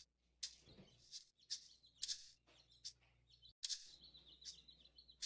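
Quiet electronic soundscape of short, bright rattling clicks at an irregular pace of about two a second, joined past halfway by a thin, wavering high whistle.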